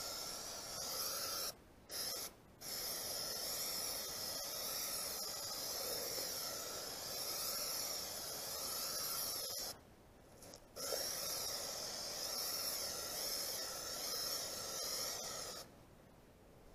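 Aerosol spray can of polyurethane hissing as it sprays in long bursts, with two short breaks about two seconds in, a one-second break about ten seconds in, and stopping near the end.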